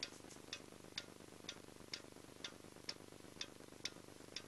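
Faint, clock-like ticking, even and steady at about two ticks a second.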